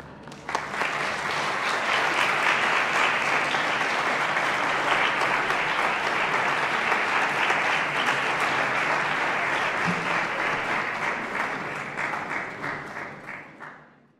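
Audience applauding. The applause starts about half a second in and dies away near the end.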